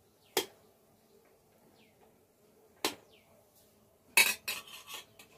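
Utensils knocking against dishes while food is served: two sharp knocks about two and a half seconds apart, then a quick run of clatter near the end. Faint birds chirp in the background.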